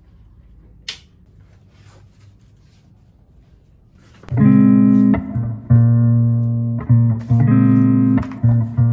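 Quiet room with a faint click about a second in. About four seconds in, background music starts: a track of plucked guitar notes over a bass line.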